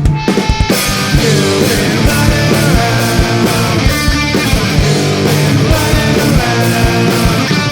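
Background rock music: a loud, fast band track with electric guitars and a steady drum beat.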